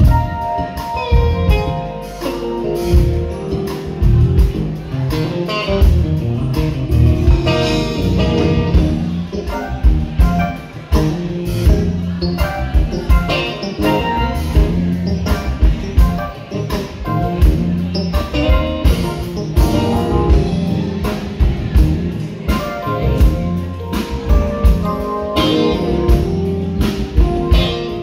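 Live band playing with guitar and drums and a steady beat, with no singing.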